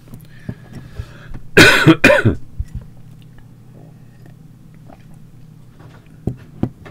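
Someone coughs twice in quick succession about a second and a half in. Two faint clicks follow near the end.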